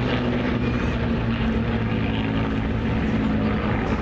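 Piston-engined World War II propeller aircraft flying overhead: a steady engine drone whose pitch slowly falls as they pass.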